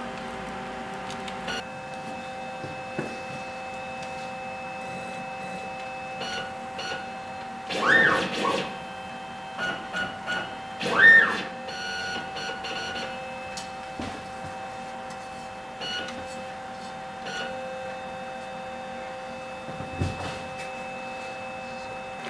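Swift-Cut CNC plasma table's drive motors jogging the cutting head into its zero position at the material's edge. They make a series of short whirrs that rise and fall in pitch, the two longest about eight and eleven seconds in, over a steady high whine from the powered-up machine.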